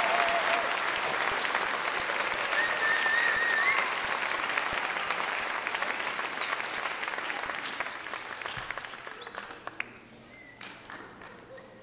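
Audience applauding, the applause thinning to scattered claps and dying away over the last few seconds.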